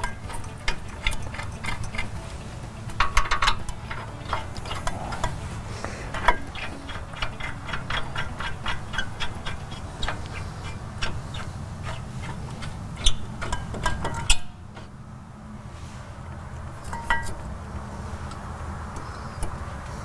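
Hand ratchet clicking in rapid runs while the brake caliper bracket bolts are run in, with scattered metal clinks over a steady low hum; the hum drops away suddenly about two-thirds of the way through.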